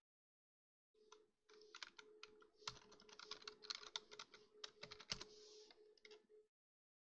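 Computer keyboard being typed on: a quick run of key clicks starting about a second in and stopping shortly before the end.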